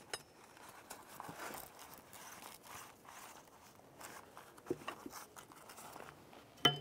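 Faint rustling and crinkling of a jack-handle bag being handled and folded around its new metal jack handle rod, with a few light clicks and knocks. The sharpest knock comes near the end.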